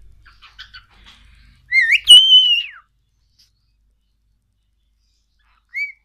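Cockatiel whistling: a few soft chirps, then one loud whistle about two seconds in that rises, holds, and falls away, and a short rising whistle near the end.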